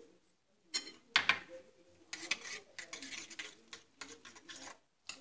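A utensil stirring a raw egg and chopped-vegetable mixture in a glass bowl, with quick clinks and scrapes against the glass for about four seconds, the loudest clink about a second in.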